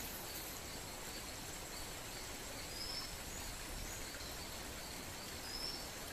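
Outdoor ambience: a steady hiss under a faint, evenly repeated high insect chirp, with two short bird chirps about three and five and a half seconds in.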